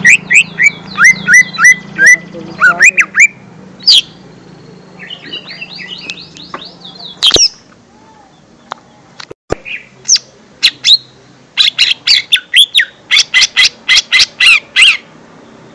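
Lesser green leafbird (cucak ijo mini) singing: quick chirps and sharp whistled notes that glide up and down, with a fast run of rapid high notes near the end. Two short clicks sound in the middle.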